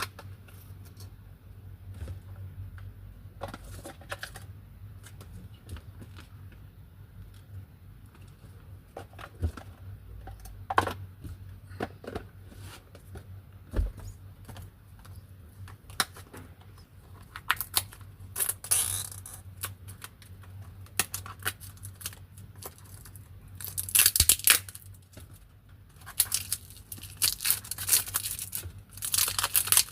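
Packaging being handled and opened: scattered taps and rustles, then louder bursts of crinkling and tearing in the second half.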